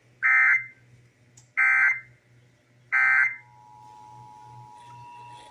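Emergency Alert System tones: three short bursts of SAME digital data tones about a second and a half apart, then, from about three and a half seconds in, the fainter steady two-tone EAS attention signal. This is the start of an EAS Required Monthly Test alert.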